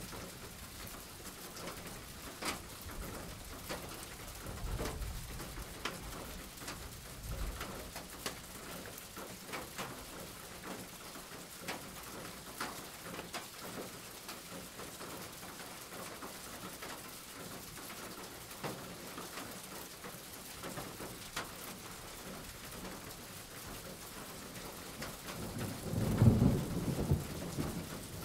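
Steady rain with scattered ticks of drops, and a low rumble of thunder near the end, the loudest sound here.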